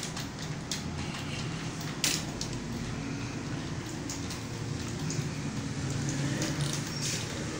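Computer keyboard typing: a quick, irregular patter of key clicks, with one sharper keystroke about two seconds in, over a steady low hum.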